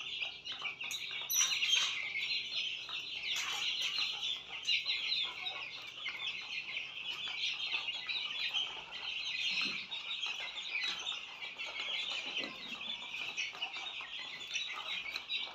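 A flock of month-old Australorp chicks peeping continuously, many high cheeps overlapping.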